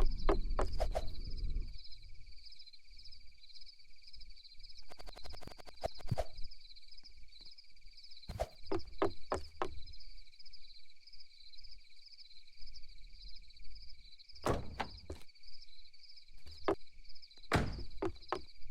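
Insects trilling in a steady, pulsing chorus, with scattered knocks and thumps close by and a brief low rumble at the start.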